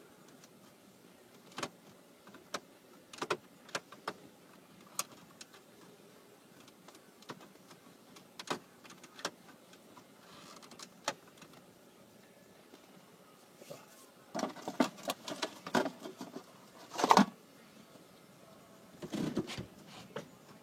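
Scattered plastic clicks and knocks as snap-in dashboard trim and controls are handled inside a pickup truck's cab, with a burst of rattling clicks near the end.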